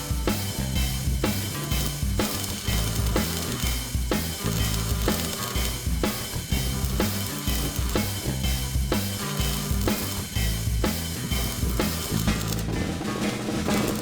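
Background music with a steady drum-kit beat, about two hits a second, over a bass line.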